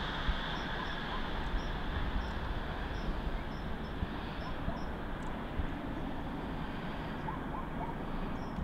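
Outdoor background noise: a steady low rumble and hiss, with faint short high chirps repeating about twice a second over the first two-thirds.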